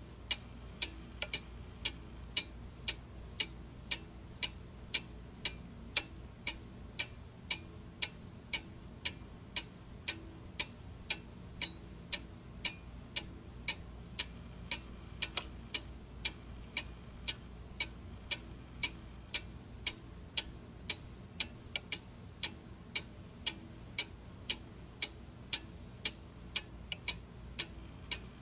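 Clock ticking steadily, about two to three even ticks a second, over a low steady hum.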